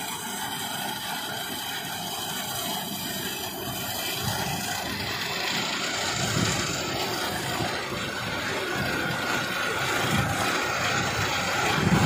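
Kubota combine harvester running steadily while it works a field, a dense mechanical noise that grows a little louder about a third of the way in.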